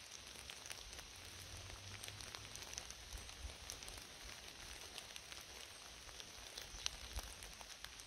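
Rain falling in a leafy forest: a faint, steady patter with scattered individual drops ticking sharply.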